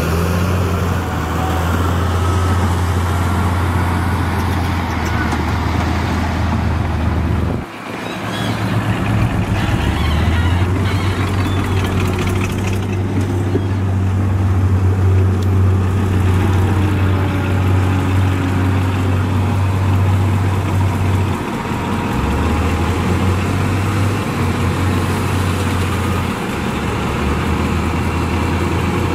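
Heavy diesel engine of earthmoving machinery running steadily with a deep drone, briefly cutting out about eight seconds in and shifting level a couple of times later on.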